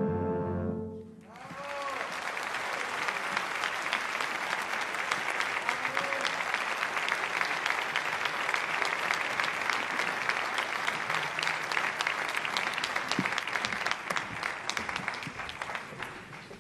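A military wind band's closing chord cuts off about a second in, followed by a theatre audience applauding steadily, the clapping thinning out near the end.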